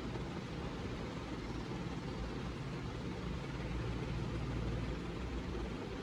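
Steady low background rumble with a faint hiss, swelling slightly about four to five seconds in.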